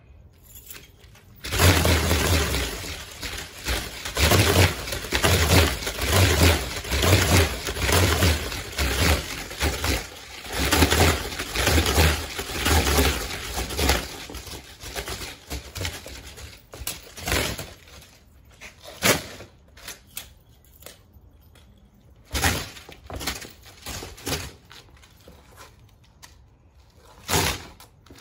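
Steel martial-arts chain whip being swung and spun: for about twelve seconds a dense, rhythmic rush of whooshing and jangling links, then separate sharp clinks and clatters of the chain snapping and striking, with one loud clatter near the end.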